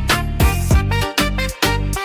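Background music with a steady beat, about two pulses a second over heavy bass.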